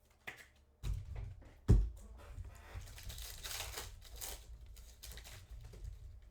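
Hands handling a pack of 2021 Panini Mosaic football cards: a few knocks and one sharp thump on the table. Then the pack's wrapper tears and crinkles for a couple of seconds.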